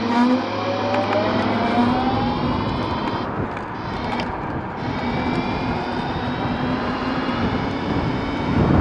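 Dualtron X2 electric scooter's motors whining as it pulls away, the whine rising in pitch over the first two or three seconds as the scooter gathers speed, then fading into steady rushing wind and road noise as it cruises.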